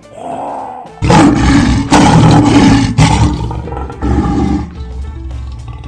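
A lion roaring: a faint low lead-in, then loud roars from about a second in with a short break in the middle, and a shorter call about four seconds in.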